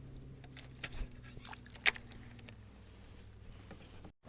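Scattered small clicks and taps, with one sharp click about two seconds in, over a faint steady low hum.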